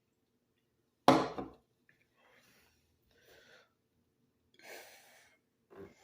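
A single sharp knock about a second in, followed by several faint breaths.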